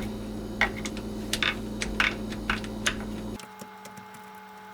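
Screwdriver working screws loose, with scattered light clicks and taps of metal on metal.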